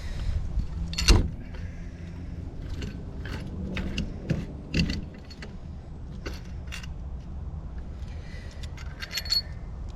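Metal hand tools clinking and scraping on a threaded pipe fitting, with a loud metallic knock about a second in and scattered sharp clinks after, over a steady low hum. A galvanized nipple is being worked out of a brass valve, where corrosion from the galvanized-to-brass joint has it stuck.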